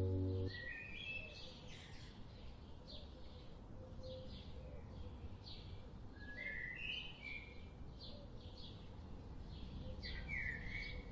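Birds chirping faintly, short high chirps coming in a few scattered clusters over a light steady background hiss.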